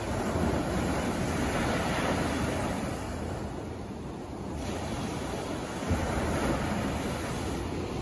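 Small waves breaking and washing up a sand beach, the surf swelling twice, with a low rumble of wind on the microphone. A brief thump about six seconds in.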